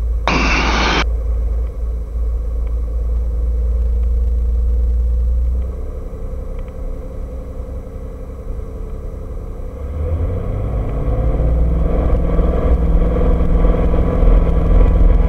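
Cirrus SR22T's turbocharged six-cylinder engine and propeller running steadily at low power. About ten seconds in, the engine note rises and grows louder as power is brought up for the takeoff roll.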